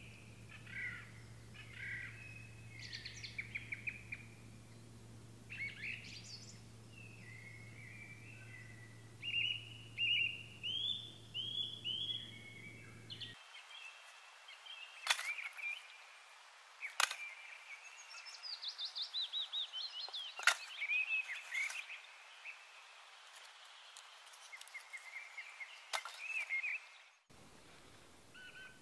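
Several songbirds singing in woodland, in short repeated chirping phrases that overlap. A few sharp clicks come in the second half.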